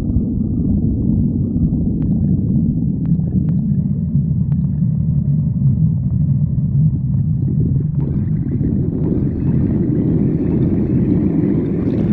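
A hungry person's stomach growling: a continuous low rumble with a few faint clicks, turning brighter and more gurgling from about two-thirds of the way in.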